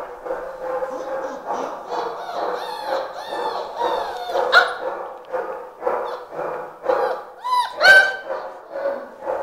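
Five-week-old German Shepherd puppies yapping in a rapid run of short, high calls, several a second. A louder, sharper yelp comes about 8 seconds in.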